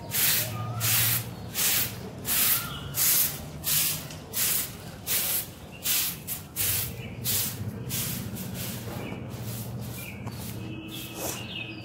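A short-handled stiff stick broom sweeping concrete paving stones in quick, even strokes, about two swishes a second, stopping about eight seconds in.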